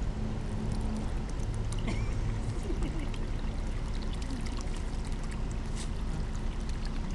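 Water running steadily from a garden hose onto the ground and plants, with a few faint clicks.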